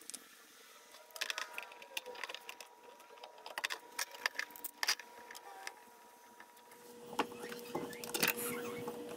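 Woodworking clamps being handled and set on a glued-up wooden scabbard: clusters of sharp clicks and clatters from the bar clamps and spring clamps, busiest near the end. A faint steady hum runs underneath and drops in pitch near the end.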